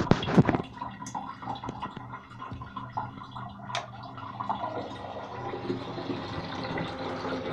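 Rainwater gurgling and running through a plastic tank's outlet and brass ball valve, with sharp clicks at the start as the valve is handled. A switch clicks about four seconds in, and a steady running noise of the water pump builds after it.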